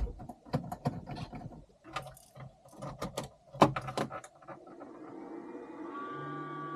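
A quick run of sharp metallic clicks and knocks, like hand tools working on an engine. From about five seconds a steady electrical-sounding hum fades in and holds.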